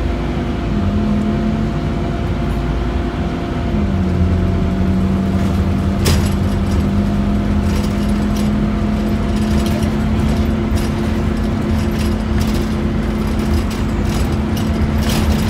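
Scania N230UD double-decker bus's diesel engine and road noise heard from inside the passenger saloon while driving, a steady drone whose note drops about four seconds in and then slowly climbs. Occasional rattles and clicks come from the interior fittings, the sharpest about six seconds in.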